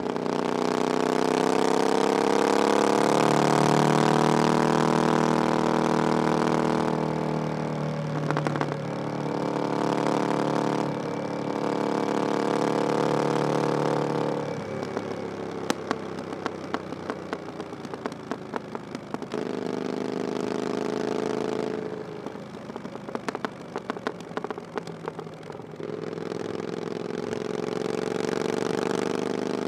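Triumph Scrambler 900's 900cc parallel-twin engine through an aftermarket "VW pipes" exhaust, ridden on the road. It pulls with rising pitch, holds steady, and twice drops off throttle into a stretch of crackles and pops before pulling again near the end.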